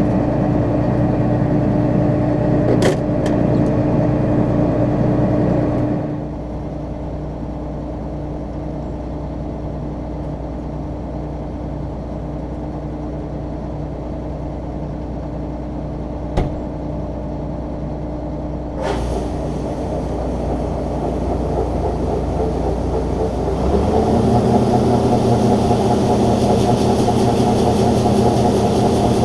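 John Deere 9500 combine's diesel engine and machinery running steadily. About six seconds in, one steady tone drops out and the sound gets quieter. It builds again from about 19 seconds, and near 24 seconds a new, higher steady tone joins in, with a couple of single clicks along the way.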